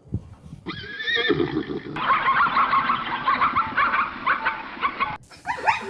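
Zebra call sound effect, a horse-like whinny. A wavering high call is followed by a few seconds of rapid, braying calls. Near the end a different recorded animal sound cuts in.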